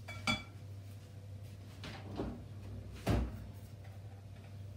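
Knocks and clunks from handling at a domestic oven: a short knock right at the start, a couple of faint taps, and a louder thud about three seconds in. A steady low hum runs underneath.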